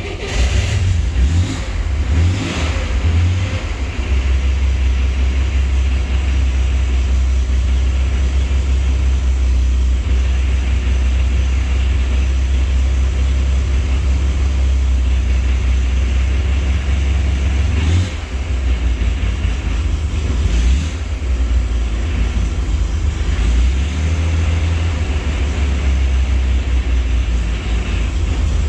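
1965 Chevrolet Corvair's air-cooled flat-six starting and then idling steadily with a deep low rumble. The owner's complaint is a rumbling that goes away when the clutch is engaged, even in neutral, which points to the clutch or its release bearing.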